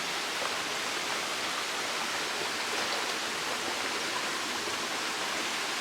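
Steady rush of water from a jungle waterfall and river, an even hiss that does not change.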